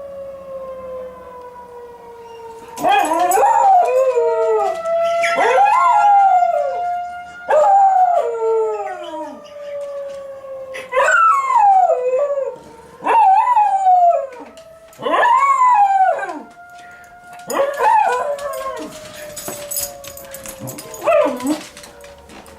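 A Schnauzer howling along with a tornado warning siren that is being tested. The siren's steady wail slowly rises and falls underneath, and from about three seconds in the dog gives a series of loud howls, each sliding down in pitch, with short pauses between them.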